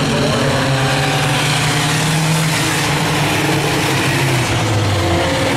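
Claimer-class stock cars racing on a short oval, several engines running hard at once. The engine pitch drifts up and down as the cars go through the turn and down the straight.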